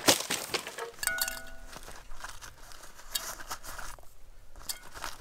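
Metal camp bowl clinking and ringing briefly about a second in, among footsteps and rustling on dry grass and fallen leaves, with a sharp knock at the very start.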